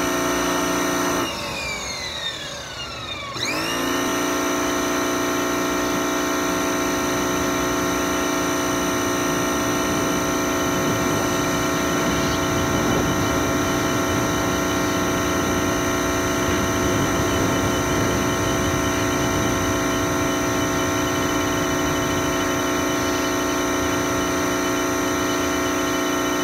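Pressure washer running at a steady pitch. About a second in, its motor note slides down as it winds down. Some two seconds later it jumps straight back up to full speed and runs on steadily.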